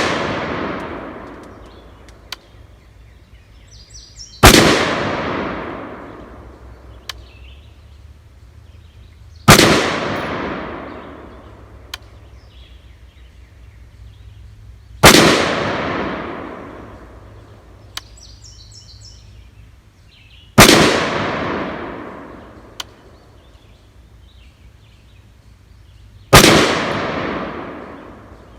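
A PSA AR-15 pistol with an 8.5-inch barrel firing .223/5.56 in slow single shots: five loud cracks about five and a half seconds apart, each followed by a long echoing tail.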